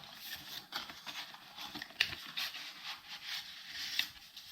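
A small product box being opened and its packaging handled: scraping and rubbing, with a few sharp clicks, the sharpest about two seconds in.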